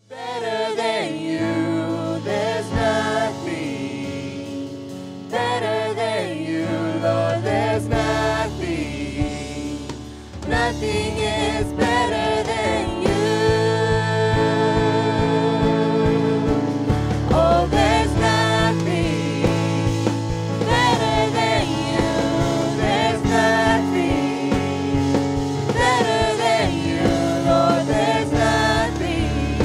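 Contemporary Christian worship music: voices singing over band accompaniment, growing fuller and louder about ten seconds in.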